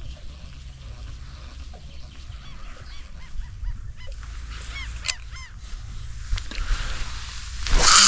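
Waterbirds calling across the water, a run of short honking calls in the middle, over a low steady rumble. Near the end comes a loud burst of rushing noise.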